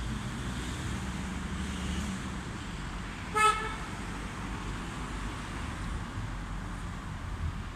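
Steady road traffic noise from passing cars, with one short car horn toot near the middle.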